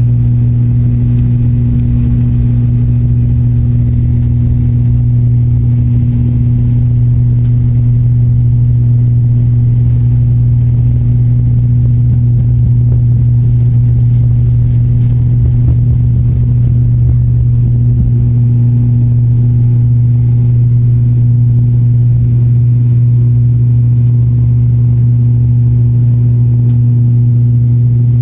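Turboprop airliner's engine and propeller heard from inside the cabin at takeoff power: a loud, steady drone with a deep propeller hum. The low runway rumble beneath it eases about two-thirds of the way through as the plane leaves the ground.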